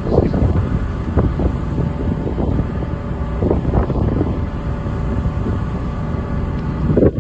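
Tour boat's engine running steadily under way, a continuous low rumble, with wind buffeting the microphone.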